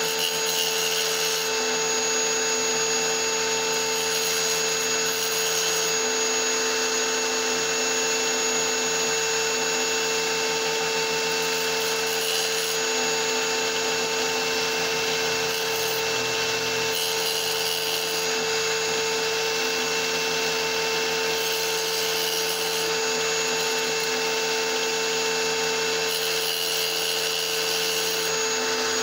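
A small electric power tool running with a steady whine while a small piece of petrified wood is pressed to its spinning wheel, with a gritty grinding that comes and goes every few seconds.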